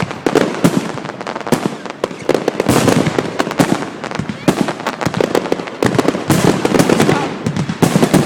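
Fireworks going off in rapid succession: a dense, unbroken run of crackling and bangs.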